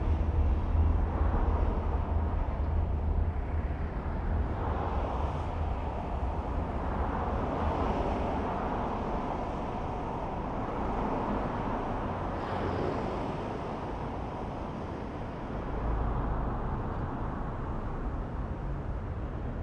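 A car driving in city traffic: a steady low rumble of engine and road with tyre noise, swelling a couple of times as the traffic noise rises and falls.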